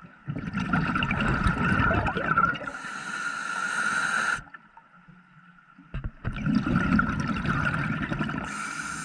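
Scuba diver breathing through a regulator underwater: twice, a long rush of rumbling, gurgling exhaust bubbles that ends in a higher hiss, with a quieter pause between the breaths.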